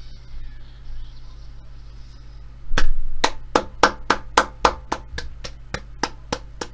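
One person clapping hands in approval, a steady run of sharp claps at about four a second starting nearly three seconds in, over a faint steady low hum.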